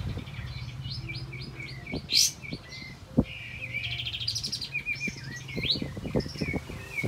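Kapas tembak, a bulbul, singing a string of short whistled chirps. About two seconds in comes one sharp upward sweep, and about four seconds in a fast rattling trill that climbs in steps.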